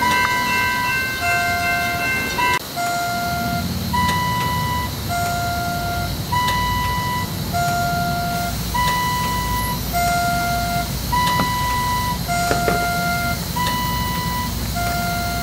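Electronic test tones from an animatronics diagnostics system. A lower and a higher beep alternate, one about every 1.2 seconds, after a short chord-like tone sequence at the start. A steady low hum comes in about two and a half seconds in, with scattered faint clicks.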